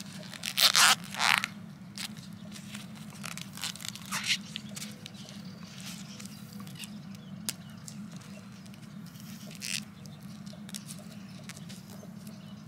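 Parafilm grafting film being stretched and wound around an olive scion: short crinkling, stretching noises, the loudest in the first second and a half and a few fainter ones later, over a steady low hum.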